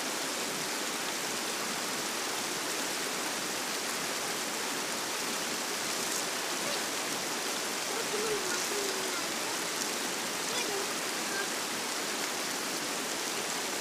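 River water rushing over stones in a steady, even roar.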